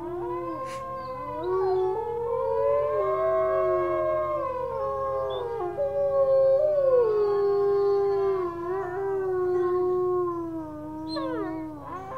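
Wolf howling: several long, overlapping howls at different pitches, sliding slowly up and down.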